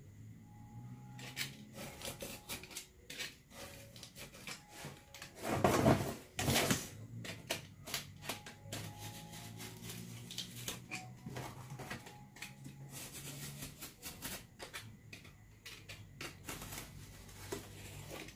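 Utility knife cutting through corrugated cardboard: irregular scratchy strokes and small ticks, with two louder, longer cuts about six seconds in.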